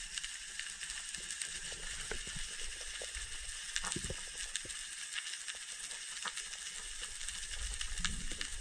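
Underwater crackle of snapping shrimp: a dense, steady field of tiny clicks and pops, with a few soft low thuds of water moving against the camera. A single sharp, loud knock comes at the very end.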